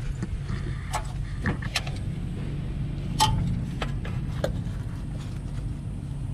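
A few sharp metallic clicks and clinks of hand tools being handled, spread out and irregular, over a steady low hum.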